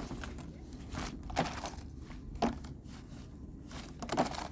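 Footsteps crunching in deep, soft snow: a few separate crunches about a second apart.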